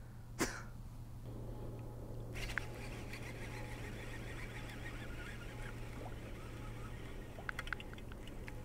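Faint outdoor background on a riverbank: a steady low hum under a light haze. There is a single sharp click just after the start and a few light clicks near the end.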